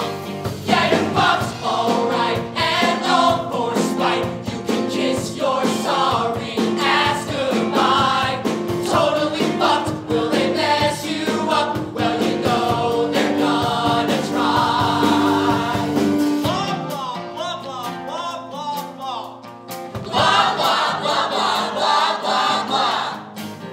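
A cast of mixed voices singing a rock-musical number together into microphones, backed by a live band. It eases off for a few seconds, then swells loud again near the end.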